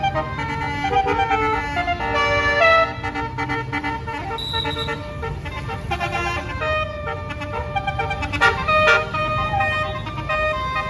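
Bus basuri 'telolet' air horn with roof-mounted trumpets, playing a melody of held notes that step from pitch to pitch, several notes often sounding together, over a low rumble.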